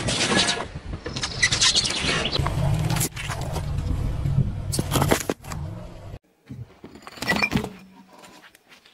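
Car tyres rolling slowly over asphalt and crushing small objects: a string of crackles, crunches and a low tyre rumble, broken by sudden cuts. A loud crunch comes near the end as a tyre presses down on sticks of sidewalk chalk.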